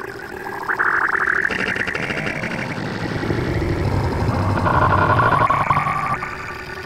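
Heavily distorted, effects-processed audio: buzzy, warbling tones that shift in pitch, with a low rumble swelling up in the middle and fading near the end.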